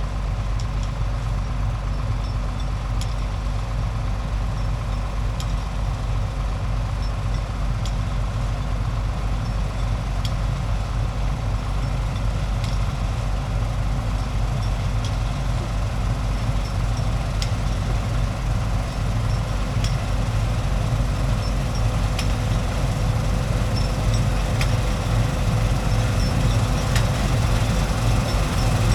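Combine harvester running steadily while cutting wheat: a constant low engine and machinery hum with faint scattered ticks.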